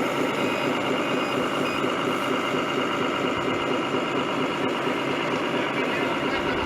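Radio-controlled scale construction trucks running: a steady mechanical engine-like noise with faint steady tones in it.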